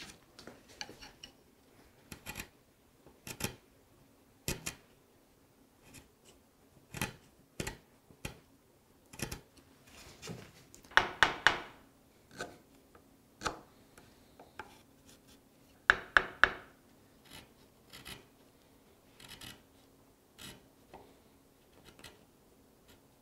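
A bench chisel pushed by hand, paring a miter into a wooden bead in a series of short slicing and scraping cuts about a second apart, with two louder runs of quick cuts partway through.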